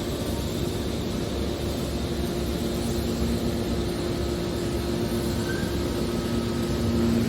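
Hydraulic metal baler running: a steady machine hum with two constant low tones over a rumbling noise, without pauses or knocks.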